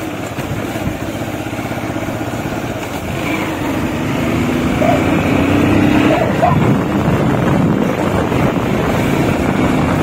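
Motorcycle engine running while riding, with steady road noise; it gets a little louder about four seconds in.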